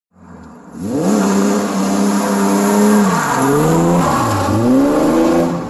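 A car driving past at speed, its engine revving hard. The pitch climbs about a second in and holds high, falls as the car passes about three seconds in, then rises twice more as it pulls away.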